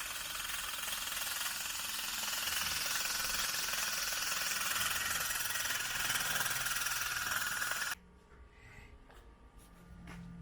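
Steady, loud metalworking noise from the repair of an exhaust mid-pipe, which cuts off abruptly about eight seconds in.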